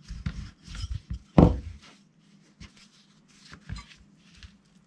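Wooden rolling pin rolling out a disc of dough on a silicone baking mat: a run of soft knocks and rubs, the loudest thump about a second and a half in. Fewer, lighter handling noises follow as the dough is turned by hand.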